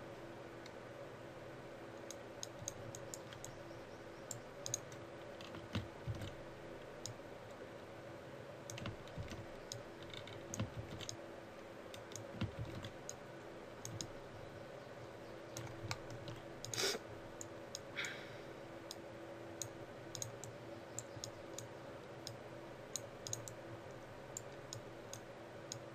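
Scattered clicks of a computer mouse and keyboard, irregular and sometimes several close together, with one louder click a little past halfway, over a steady low electrical hum.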